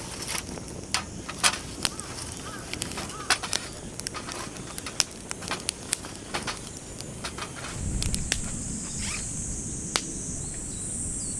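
Wood fire crackling, with irregular sharp pops. From about eight seconds in, a steady high-pitched buzz and a low rumble join.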